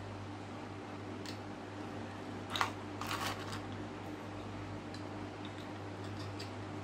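Cooling fan running with a steady hum, under small clicks and clatter of hard plastic parts being handled. The sharpest click comes about two and a half seconds in, followed by a short run of clicks, then a few faint ticks.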